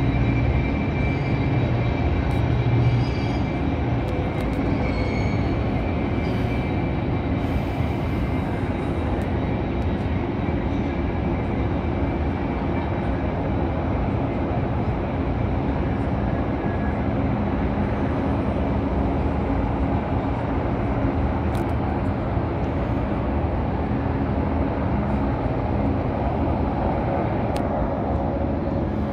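Steady low rumble of distant helicopters mixed with city traffic noise, a little louder in the first three seconds.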